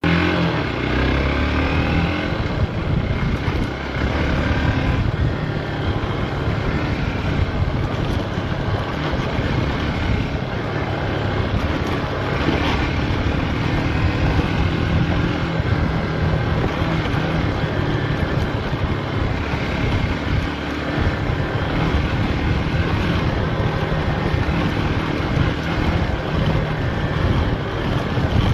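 Off-road vehicle engine running steadily under way, with a rushing noise over it.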